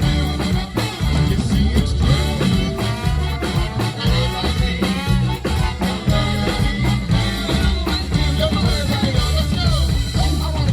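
A live swing band playing an upbeat number with a steady beat, with wavering horn or vocal lines over the rhythm section.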